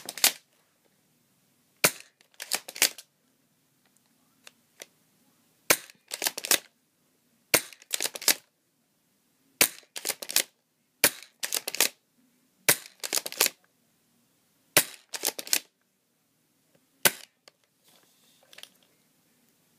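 Spring pump-action BB gun, built like a pump shotgun, fired repeatedly at close range. Each round is a sharp snap with a quick clatter of clicks just after, as the pump is worked between shots, about every two seconds.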